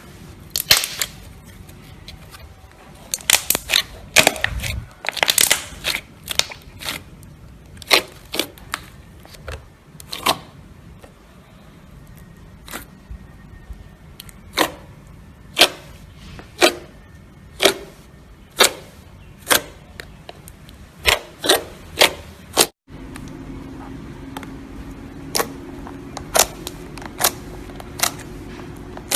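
Slime being squeezed and pressed by hand, giving sharp, irregular pops and clicks as trapped air bursts. About three-quarters of the way in, the sound cuts to another clip with a steady low hum under further pops.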